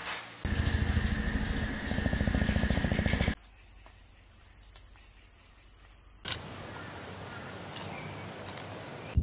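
A cut-together run of background noises: about three seconds of a loud motor running with a fast steady pulse, then an abrupt drop to a quiet stretch with thin steady high tones, then a steady hiss with a high tone over it.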